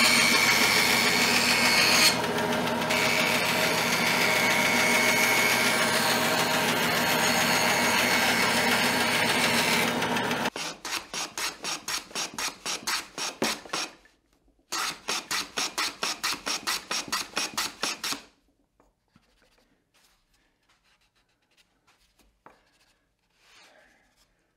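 A bandsaw runs and its blade cuts through a board with a steady loud whir. About ten seconds in, it gives way to a hand plane on a shooting board: two runs of quick, evenly spaced rasping strokes as the plane shaves the board's end. After that come only faint taps.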